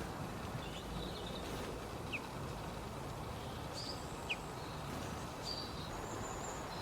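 Small birds giving a few short, scattered high chirps and calls over a steady low outdoor background noise.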